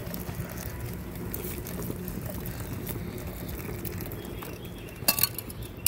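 Boiling hot water being poured steadily into a pot of dried rice flour, with a sharp knock or two near the end.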